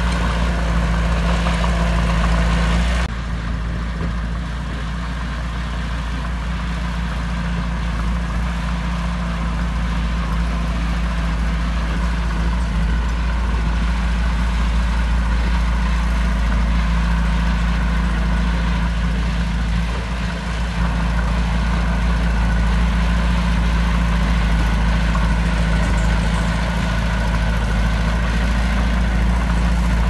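Small crawler bulldozer's diesel engine running steadily with a low hum as it works the blade through dirt and rock; the sound drops slightly and loses some of its hiss abruptly about three seconds in.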